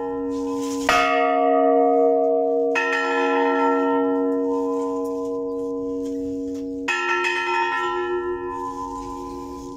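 A large church bell struck by its clapper, pulled by hand on a rope, rung for the tercera llamada (the third call). Three strikes, about a second in, just under three seconds in and about seven seconds in, each left to ring on and slowly fade.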